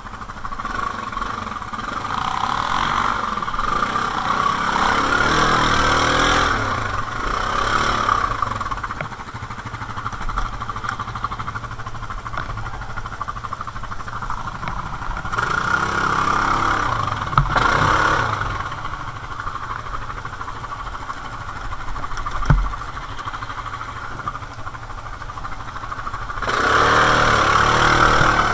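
ATV engines running while riding, the revs rising and falling several times, with the biggest surges about five seconds in, about seventeen seconds in and near the end. A single sharp knock about two-thirds of the way through.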